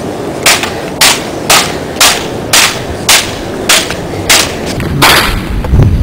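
Gunfire sound effect: about eight single gunshots roughly half a second apart, then a longer, heavier blast about five seconds in.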